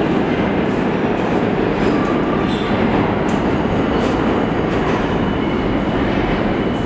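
New York City subway train rumbling steadily and loudly through the station tunnel, with a few faint high wheel squeals and clicks now and then.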